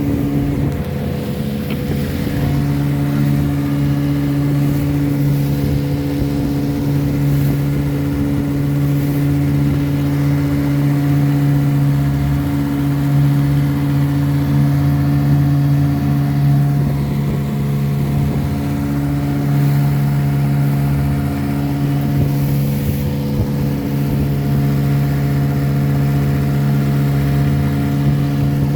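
1957 West Bend-built Elgin 7.5 hp two-cylinder two-stroke outboard motor running steadily after a head gasket repair. Its note shifts slightly about two seconds in, then holds even.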